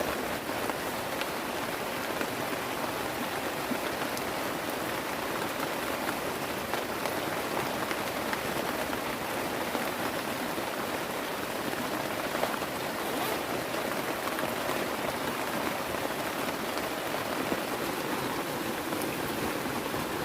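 Heavy rain falling steadily, an even hiss with scattered drop ticks.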